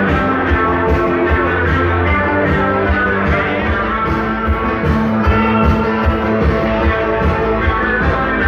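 Rock music with guitar and a steady beat, played loud over a sonidero dance-hall sound system.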